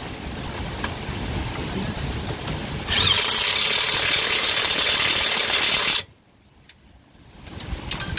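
Impact wrench running for about three seconds on a suspension bolt, starting about three seconds in and stopping abruptly. Light clicks of tools come before it.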